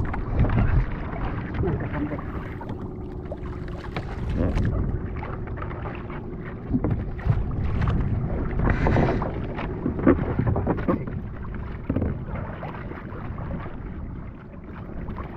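Small fishing boat at sea: water sloshing and splashing against the hull, with wind on the microphone and irregular knocks and thuds.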